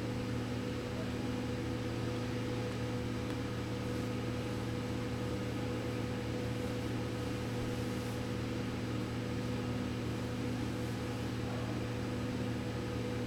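Steady, unchanging machine hum with a few constant low tones over a light hiss.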